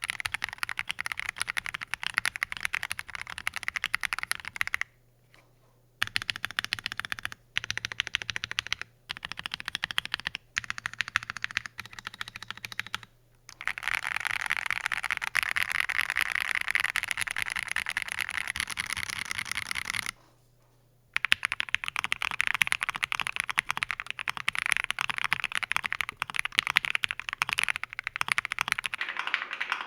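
Typing on an Akko ACR Pro Alice Plus mechanical keyboard with lubed Akko CS Clear switches in a modded polycarbonate plate with no foam: runs of rapid keystrokes broken by short pauses. About two-thirds through it cuts out for a second and resumes with the board fitted with Gateron CJ switches and PE foam.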